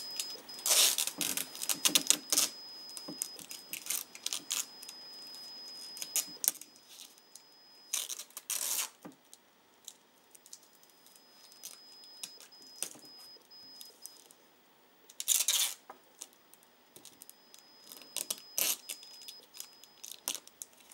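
Sellotape pulled off its roll in several short rasping rips, about a second in, around two seconds, around eight seconds and at about fifteen seconds. Scattered clicks and paper rustle fall between the rips as a sheet of sandpaper is taped down to a wooden table.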